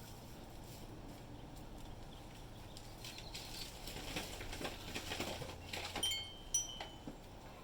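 Samsung front-load washing machine running: a steady low hum with irregular light knocks and rattles that grow from about three seconds in. A few short, high electronic beeps come about six seconds in.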